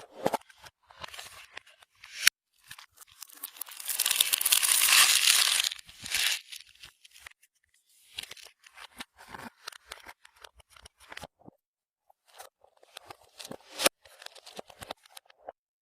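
Clear slime being worked by hand: sticky crackling and tearing sounds in irregular bursts, with a longer unbroken stretch about four seconds in and two sharp pops, one about two seconds in and one near the end.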